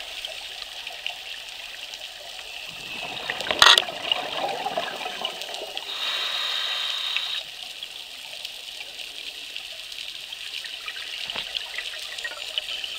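Underwater sound of a scuba diver breathing through a regulator: a burst of exhaled bubbles a few seconds in, with a sharp knock in the middle of it, then a steady hiss of inhalation for about a second and a half, over a constant fine crackle of the water.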